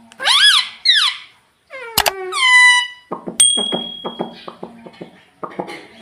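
Pet ringneck parakeets calling: two loud squawks that rise and fall in pitch, then a longer call sliding down. About halfway through comes a quick run of clicking chatter, about six clicks a second.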